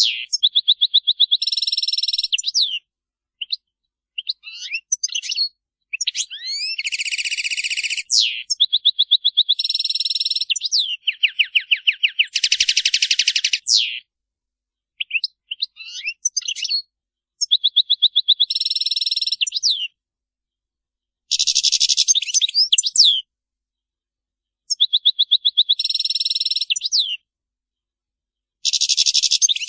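European goldfinches chattering: bursts of rapid high twitters, trills and sharp calls, broken by gaps of complete silence, with similar phrases coming round again every few seconds.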